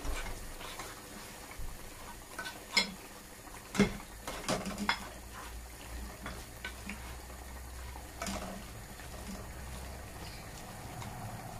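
A spoon stirring mutton and spices frying in a pressure cooker, with irregular clinks and knocks against the pot over a faint sizzle; the sharpest knock comes a little before the middle.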